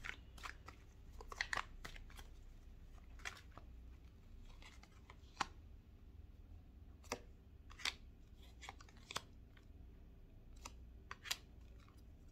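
A deck of reading cards being shuffled and drawn: faint, irregular card snaps and flicks, about a dozen spread through, some in quick pairs.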